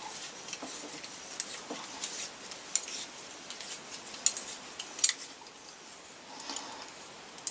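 Helicoil wire thread insert being wound into a tapped hole in an aluminium casting with a hand insertion tool: small, scattered metallic clicks and scrapes, the sharpest about five seconds in.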